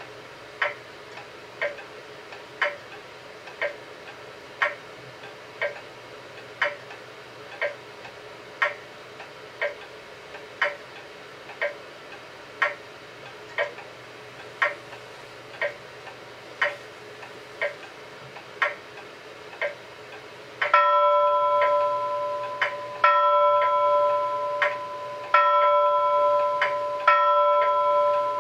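Clock ticking steadily about once a second. About two-thirds of the way through, a bell-like chime strikes four times at the same pitch, each stroke ringing on and fading, while the ticking carries on.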